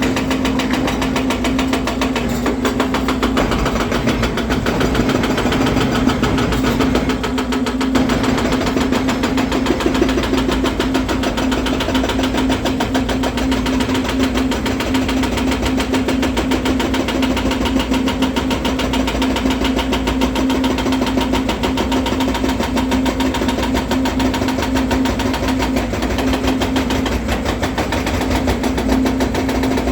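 Volvo EC300DL excavator's diesel engine running steadily, with a constant drone.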